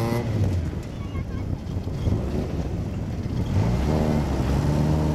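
Rally car engine revving on a gravel stage while the car sits nearly stopped across the road: one rev dies away at the start, and another rises about three and a half seconds in and holds to the end. Wind on the microphone runs underneath.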